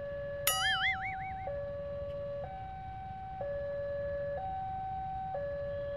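Railway level-crossing electronic warning alarm, two tones alternating about once a second, sounding while the barrier is down for an approaching train. About half a second in, a brief warbling whistle with a wavering pitch sounds over it.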